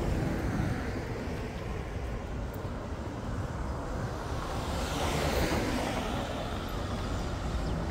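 Street traffic noise, with a vehicle passing about five seconds in.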